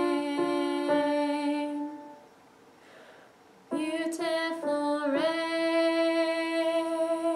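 A woman singing long held notes of a choir part, unaccompanied. The singing breaks off about two seconds in and resumes with a long sustained note.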